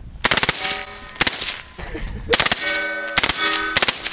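Suppressed full-auto AR-15 firing short bursts of two to four rounds, about five bursts in all, with a ringing tone hanging after several of them.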